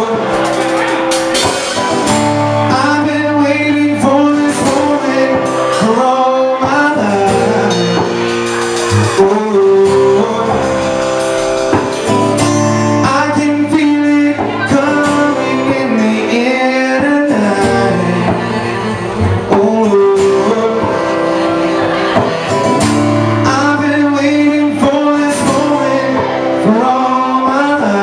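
Live rock band playing loud amplified music: drum kit, electric bass and guitar, with a man singing over them.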